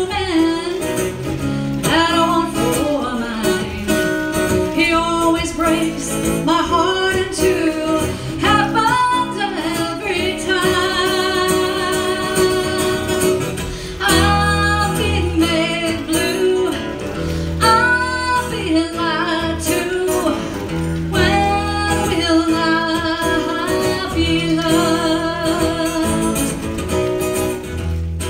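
A woman singing, with several long held notes, over a strummed acoustic guitar, played live through a PA.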